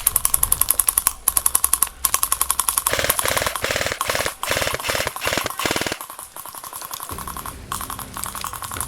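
Airsoft light machine gun firing rapid full-auto bursts, a fast even clatter of shots. There is a short break about two seconds in, a longer burst from about three to six seconds, and fainter, sparser automatic fire near the end.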